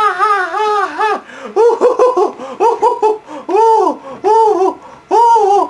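A young man laughing loudly in a high-pitched voice. A drawn-out, wavering cry breaks off about a second in, and a string of separate short laughs follows.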